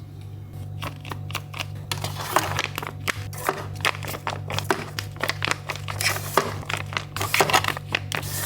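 Plastic packaging crinkling and drink bottles and cans knocking and clicking as they are unpacked and handled, in quick irregular taps, over a steady low hum.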